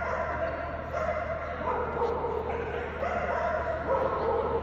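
A dog whining in drawn-out notes that shift in pitch, several in a row, over a steady low hum from the hall.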